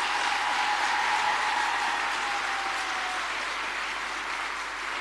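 Audience applauding, at its fullest about a second in and then slowly fading, with a faint held voice-like tone over it for the first three seconds.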